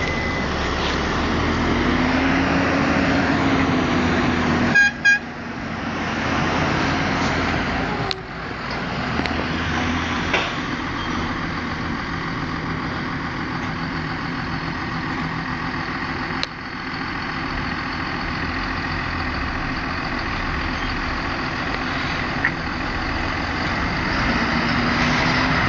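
John Deere tractor's diesel engine working hard while pushing up grass on a silage clamp, its revs rising and falling, with a steady high turbo whistle over it. Two short horn-like toots about five seconds in.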